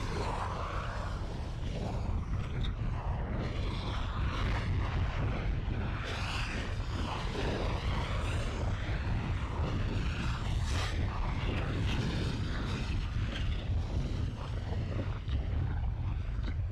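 Volcanic eruption sound effect: a steady, continuous deep rumbling roar with a rough noise above it.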